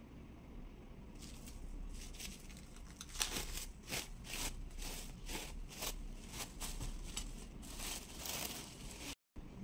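Clear plastic cling film crinkling and crackling as it is handled and peeled off a ball of food, in a quick irregular run of crackles from about a second in. It stops abruptly near the end.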